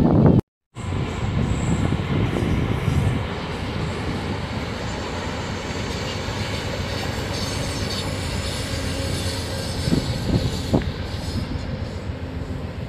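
A long passenger train running past on the shoreline railway, a steady rumble of wheels on the rails.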